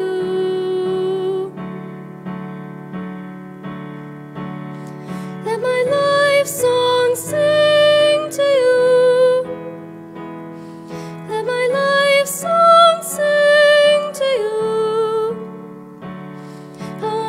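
A woman singing a slow song to digital piano accompaniment, the piano playing steady repeated chords. Her voice swells louder twice, once in the middle and once later.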